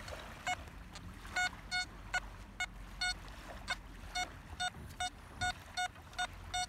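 XP ORX metal detector with an elliptical HF coil giving a string of short target beeps, all at the same pitch and irregularly spaced, as the coil sweeps over sand. The beeps are the detector's signals from small buried targets.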